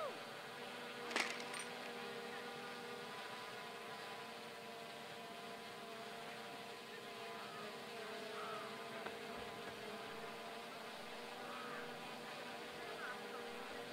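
Steady mechanical hum from an unseen motor, holding an even pitch throughout. A single sharp click comes about a second in, and faint snatches of distant voices are heard now and then.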